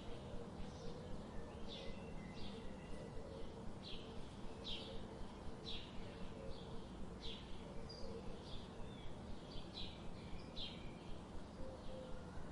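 Birds chirping: short, high calls repeating about once or twice a second over a steady background hiss.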